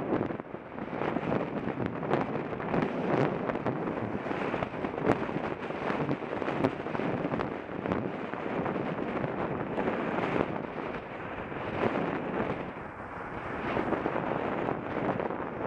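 Wind rushing and buffeting over a bicycle-mounted camera's microphone as the bike rides along, with road traffic passing alongside.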